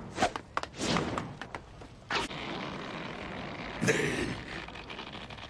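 Animated fight sound effects: a run of sharp hits and clashes in the first two seconds or so, then a louder rushing swell about four seconds in.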